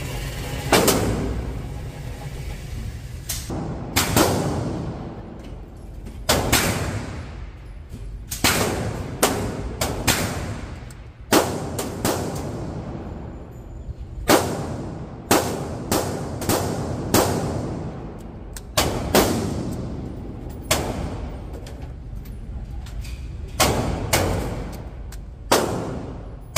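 Pistol shots at an indoor shooting range: sharp cracks, each followed by a ringing echo off the concrete lane, fired one at a time at uneven intervals, about twenty in all, sometimes two or three in quick succession.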